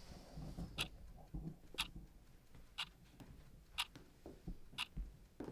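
A clock ticking steadily, one sharp tick each second, with faint low rustling underneath.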